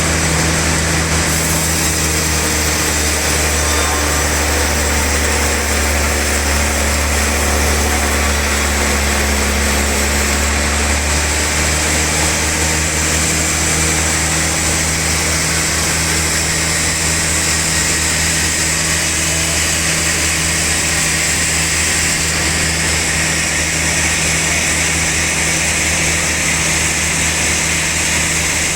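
Sawmill bandsaw machinery running steadily: a constant low motor hum with a hiss over it, the hum shifting slightly about eleven seconds in.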